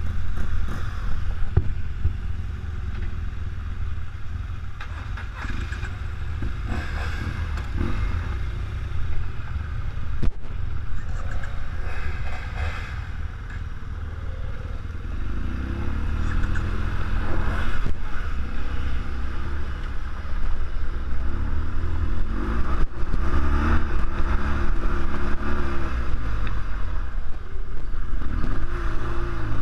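BMW R1200GS Adventure's boxer-twin engine running at low speed, its pitch rising and falling as the throttle is opened and closed, more often and more strongly in the second half as the bike rides onto a gravel track.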